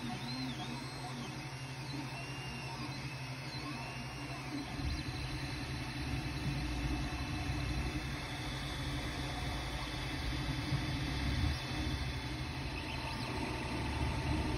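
Ender 3 Pro 3D printer running a print: the stepper motors whine in rising and falling sweeps of pitch as the print head traces curves, over the steady hum of its cooling fans. From about five seconds in a louder low rumble joins.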